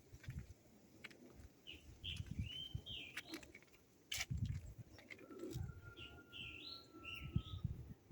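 Birds chirping in two short bursts of quick, swooping notes, with a thin steady whistle under the second burst. Uneven low thumps and rumble run throughout, and a sharp click comes about four seconds in.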